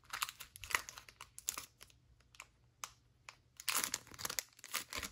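Foil wrapper of a Pokémon trading-card booster pack crinkling and tearing as it is opened by hand, in irregular crackles. It goes quieter for a second or two about two seconds in, then crinkles again near the end.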